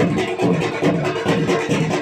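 Tasha drum music: fast, driving drum strokes over a steady low beat several times a second, with a sustained melody line above.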